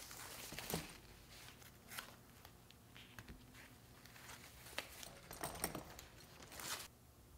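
Tissue paper rustling and crinkling in several short bursts as it is pulled off and crumpled away from leather apron straps.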